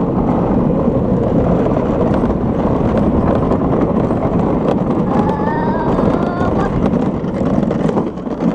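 Gravity luge cart rolling fast down a concrete track: a loud, steady rumble of its wheels and the rushing air. About five seconds in, a brief high wavering sound rises over it.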